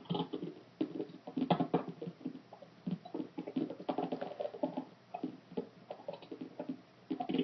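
Irregular light tapping and scratching noises, several a second in uneven clusters with short pauses, from an unidentified source inside the house.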